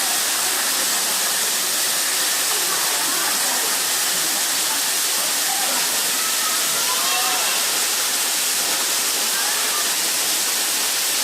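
Waterfall's steady rush of falling water, an unbroken hiss with no pauses.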